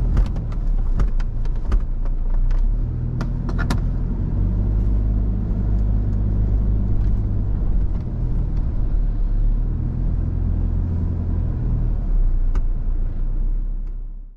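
Toyota Prado 4WD driving over soft, rutted beach sand, heard as a steady low engine and road rumble with light rattles and clicks, most in the first few seconds. The sound drops away sharply at the very end.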